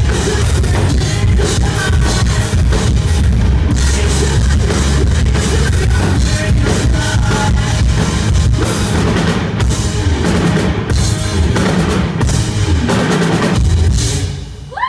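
Rock band playing live, loud drum kit and electric guitars, recorded from among the audience. Near the end the music drops away.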